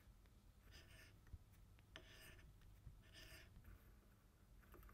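Spiral-flute tap cutting a thread into a metal ball: faint scraping in four short strokes, about one a second.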